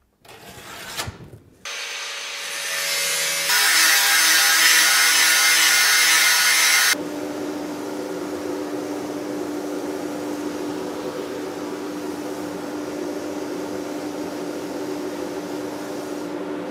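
Power tool working the rusty sheet metal for a fender patch. A loud, harsh cut lasts about three seconds, then the tool keeps running with a steady hum.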